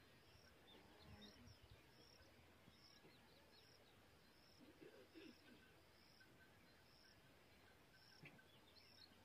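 Very faint rural outdoor ambience: a short high chirp repeating evenly, a little more than once a second, with faint scattered bird calls.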